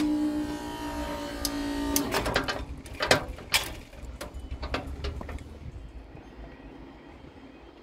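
Level crossing audible warning sounding a steady tone while the barrier boom rises, cutting off about two seconds in. A run of sharp clicks and knocks follows as the barriers finish rising, then it goes quiet.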